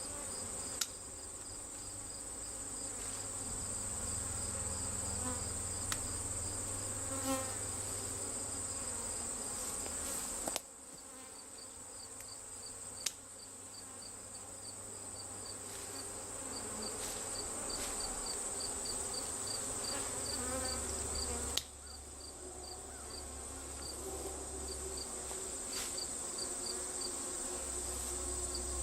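Crickets chirring in a steady high-pitched drone, with a second insect pulsing in quick repeated chirps, over the buzzing of a honeybee swarm; a few sharp clicks break in.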